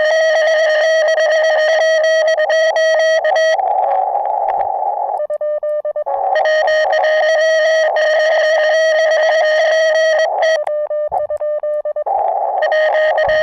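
Morse code (CW) tone of about 650 Hz from a ham radio, keyed rapidly in runs of dots and dashes, with short stretches of narrow-filtered receiver static between the runs.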